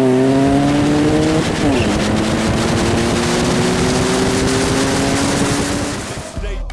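Car engine pulling hard through the gears: its note drops sharply at an upshift a couple of seconds in, then climbs steadily again, over heavy wind and road noise. It fades slightly before music cuts in at the very end.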